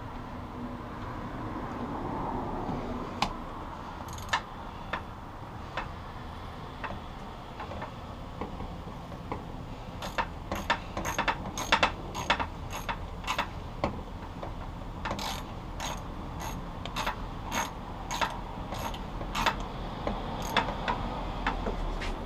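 Sharp metallic clicks of hand work on a 1975 Honda CB750's shift drum assembly, as the small retaining tab under the drum is fitted onto its bolt. A few scattered clicks come first, then two quick runs of clicking, about three a second, from about halfway through almost to the end.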